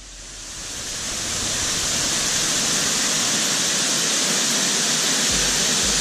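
Steady rushing of a waterfall and the water running over rocks below it, fading in over the first second or so. A low rumble joins near the end.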